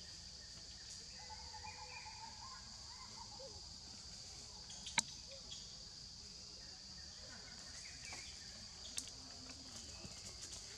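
Steady, high-pitched drone of insects in the background, with faint wavering calls in the first few seconds. A sharp click about five seconds in is the loudest sound, and a smaller click comes near nine seconds.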